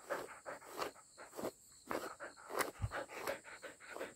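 Border collie mix dog panting close to the microphone, quick rhythmic breaths about three a second.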